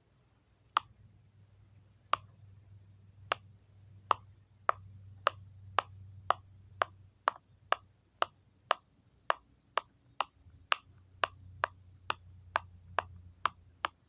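Silicone pop-it fidget toy, its bubbles pressed through one after another: a run of about two dozen sharp pops, spaced out at first and then coming about two a second.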